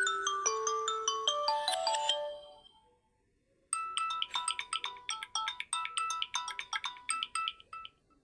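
Samsung Galaxy A02 stock ringtones playing one after another. A tune of held notes fades out about two seconds in, then after a short silence a different, quicker ringtone of short, rapid notes begins.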